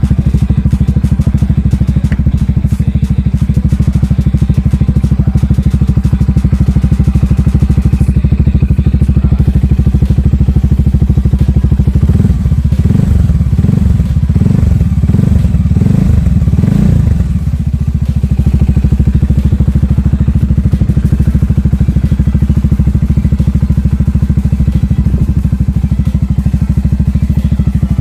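Italika Vortx 300 single-cylinder motorcycle engine idling steadily, then blipped about five times in quick succession around the middle, each rev rising and falling back, before settling to idle again.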